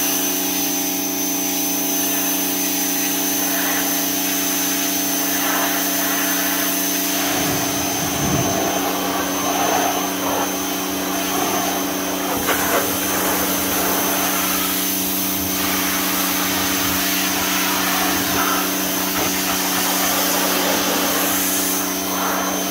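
Greenworks 1600 psi electric pressure washer running with the trigger held: a steady electric motor-and-pump hum with a thin high whine, over the hiss of the water jet spraying dried mud off a vehicle's inner fenders. The spray noise shifts as the jet moves.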